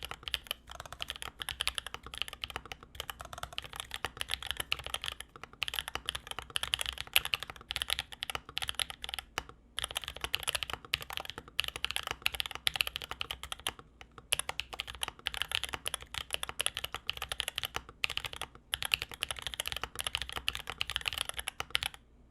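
Dolphin Linger mechanical keyboard with 67 g Holy Panda tactile switches and Sanctuary Rebirth PBT keycaps being typed on steadily: a fast run of key clacks, broken by short pauses every four or five seconds, stopping near the end.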